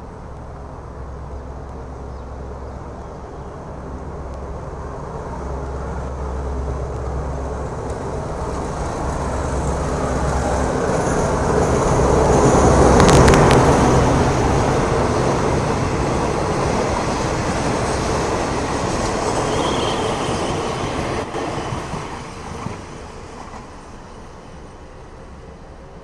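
Passenger train hauled by an Alstom diesel-electric locomotive comes by close at hand. The engine hums and grows steadily louder until the train passes about halfway through, with sharp clicks of wheels over the rails. The carriages then rumble past and fade in the last few seconds.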